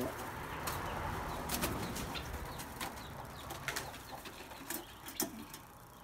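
A dove's wings flapping as it flies up from its shelf for about the first two seconds, followed by a handful of short sharp clicks.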